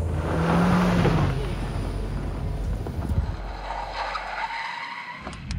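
A car skids, its tyres sliding with the engine running, and the sound fades away over a few seconds, with a faint rising whine near the end.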